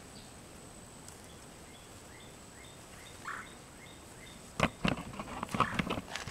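Crunching and rustling in dry woodland brush and leaf litter from about four and a half seconds in: a quick, uneven run of sharp crackles. Before that, faint short bird chirps repeat about twice a second over a low outdoor background.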